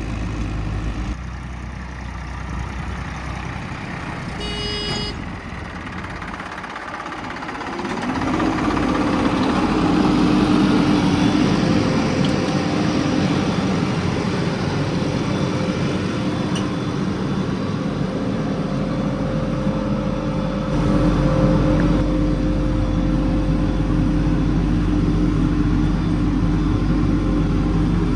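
Diesel engine of heavy earthmoving machinery running, growing louder about eight seconds in and again near twenty-one seconds. A short horn toot sounds about five seconds in.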